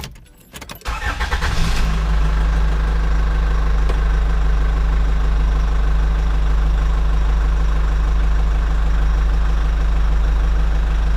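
Motor vehicle engine sound, laid over the toy footage: it starts about a second in, then idles with a steady, even low rumble until just before the end.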